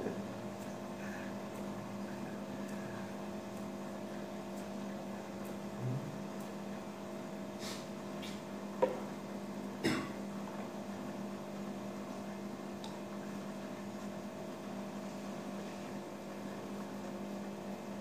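Steady electrical hum with several even tones, broken by a few faint short knocks or clicks around the middle.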